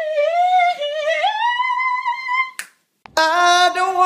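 A voice sings one long, high, wavering note that climbs in pitch and ends with a sharp click about two and a half seconds in. After a short silence, a man starts singing a sustained lower note.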